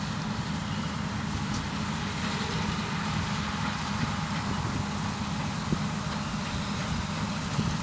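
Combine harvester running while cutting grain, its engine and threshing machinery making a steady low mechanical hum.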